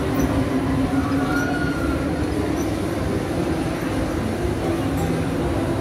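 Prater Liliput miniature railway train running, a steady rumble of wheels on the narrow-gauge rails, with a brief faint squeal about a second in.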